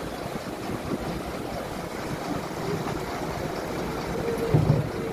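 Steady engine rumble of a harbour launch heard from on board, mixed with a noisy wash of water. A short, louder tone sounds near the end.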